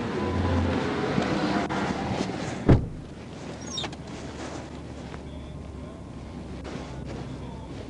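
Road noise from highway traffic passing by, with a rushing wind-like hiss on the microphone. A single sharp thump comes a little under three seconds in, after which the noise settles lower and steadier.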